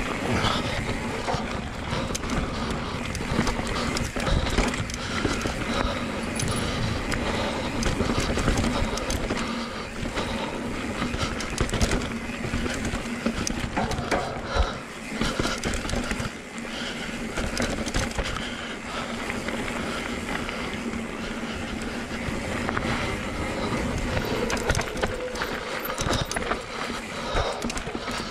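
Full-suspension enduro mountain bike descending a dirt and rock trail: tyres rolling over soil and stones with a continuous rattle of chain and frame, broken by frequent knocks as the wheels hit rocks and roots.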